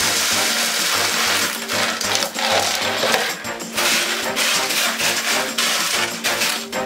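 Hydroton expanded clay pebbles pouring into a plastic tote with a rushing rattle, then clicking and clattering against each other as they are spread out by hand. Background music plays underneath.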